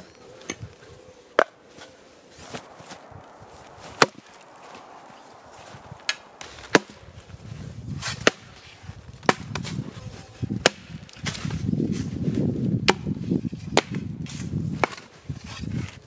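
Axe splitting firewood rounds: about eight sharp chopping strikes, unevenly spaced one to two seconds apart, the loudest about four seconds in. A low rumbling noise builds under the later strikes.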